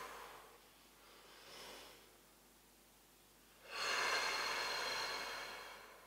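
A man's deliberate breathing paced with a slow seated side-bend stretch: a breath fading out at the start, a faint short breath about a second and a half in, then a long exhale of about two seconds starting near four seconds in.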